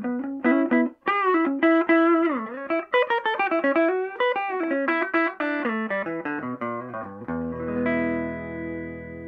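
Hollow-body electric guitar played through a repaired Univox U-1226 tube amp: quick single-note lines with a few bent, dipping notes, then a chord struck about seven seconds in and left ringing.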